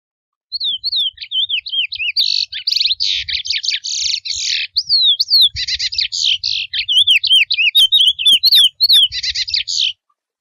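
Male chestnut-bellied seed finch (curió) singing its wild 'mateiro' song: quick whistled notes sliding down in pitch, alternating with harsher buzzy, rattling phrases. It starts about half a second in and stops just before the end.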